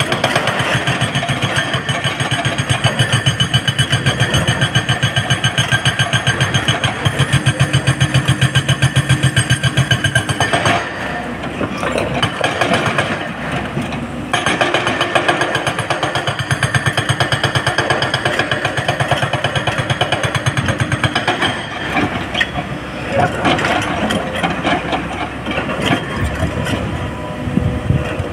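SANY SY225 crawler excavator's diesel engine working under digging load with a fast, even pulse. It eases off about eleven seconds in and again around twenty-two seconds before pulling hard again.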